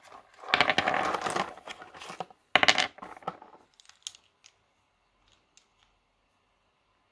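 A foil-lined cardboard candy box rustling and crinkling as it is torn open, then hard licorice pieces clattering out into a hand about two and a half seconds in, the loudest moment. A few light clicks follow as the pieces knock together, then it goes quiet.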